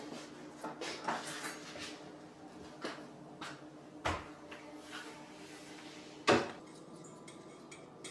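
Scattered knocks and clinks of kitchen handling: a stainless steel mixing bowl and utensils being picked up and set down on a countertop and stove. The loudest knock comes a little past the middle, over a faint steady hum.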